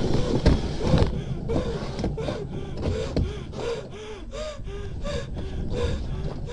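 A man's voice in short, breathless gasping cries, about three a second, after a frightening first bobsleigh run. The rumble of the bobsleigh fades out in the first second.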